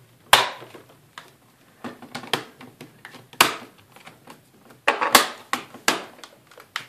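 Plastic palm-rest cover of a Sony Vaio VGN-N38E laptop pressed down along its edges, its clips snapping into place in a series of about ten sharp clicks at irregular intervals. The loudest snaps come about three and a half seconds in and again around five seconds.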